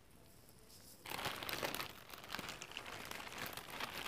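A clear plastic bag crinkling as it is handled, starting about a second in.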